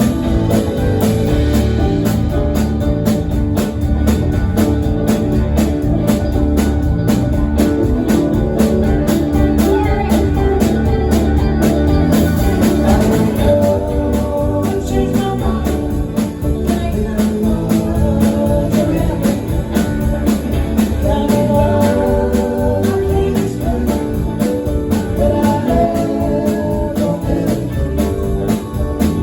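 Live band playing a song with guitar and drum kit, with singing.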